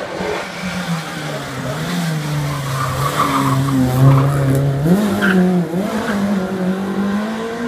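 Small competition hatchback's engine driven hard at high revs, the note sagging and then climbing sharply again about five seconds in, with tyres squealing briefly in the corners.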